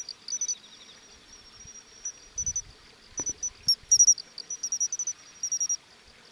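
Matsumushi (pine cricket, Xenogryllus marmoratus) singing its "chin-chiro-rin" song: short, high-pitched chirps in little groups, repeated again and again. A couple of soft low thumps come in the middle.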